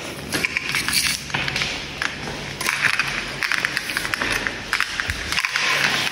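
Rustling and handling noise of someone walking with things in hand, with many light irregular clicks and clinks from keys on a lanyard.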